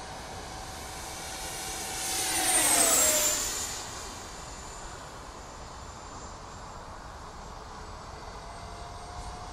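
Electric ducted fans of a Freewing 70mm Yak-130 RC jet whining in a fast low pass. The whine swells to its loudest about three seconds in and drops in pitch as the jet goes by, then carries on as a fainter steady whine while it flies away.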